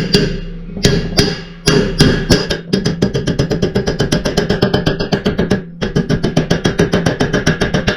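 Hammer blows on a steel bearing race being driven into a truck's front wheel hub, with the hub ringing between blows. The blows are spaced out at first, then come in a fast even run of about eight a second, broken by a short pause.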